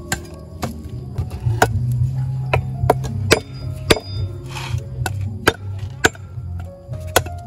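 Heavy meat cleaver chopping a cow's leg on a wooden chopping block: a series of sharp blows about every half second, over background music.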